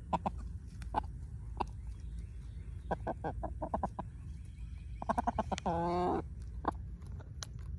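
Chickens (a young rooster and his hens) clucking while foraging: quick runs of short clucks about three and five seconds in, then one longer, low, drawn-out call about six seconds in.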